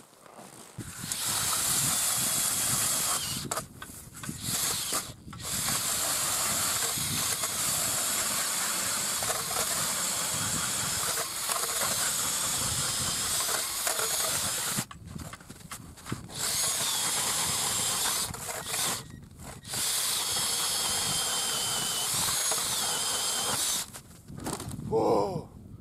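Cordless drill driving an ice auger, boring through lake ice with a steady grinding hiss, in several long runs broken by short pauses. The ice here is double-layered.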